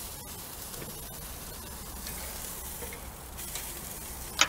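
Olive-oiled artichoke halves sizzling on a grill grate over open flames, a steady hiss. Near the end there is a sharp click.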